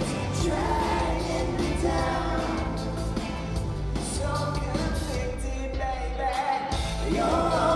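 Male pop vocal group singing live over a band backing. Near six seconds in the low end briefly drops out, then the voices come back in layered harmony.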